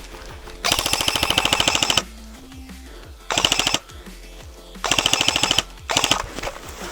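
Airsoft rifle firing on full auto in four bursts: a long burst of about a second and a half near the start, then three short bursts in the second half.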